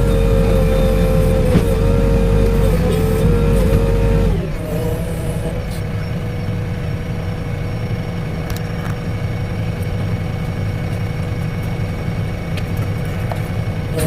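Diesel engine of a JCB excavator running steadily. About four seconds in it eases down to a lower, quieter note and holds there, with a few light knocks.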